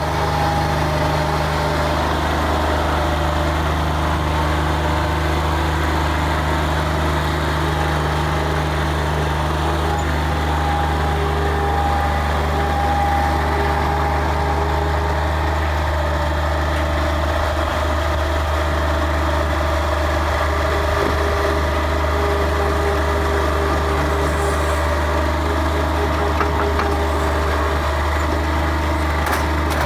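Bobcat 463 skid-steer loader's diesel engine running at a steady, constant speed, a low even drone.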